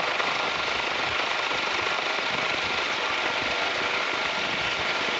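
Helicopter cabin noise with the side door open in a hover: a steady rush of rotor, engine and wind, with a thin steady whine running through it.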